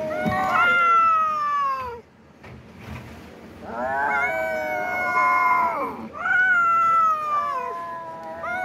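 Long, drawn-out cat yowls, three in a row, each about two seconds long and sliding down in pitch at its end, with a short pause after the first.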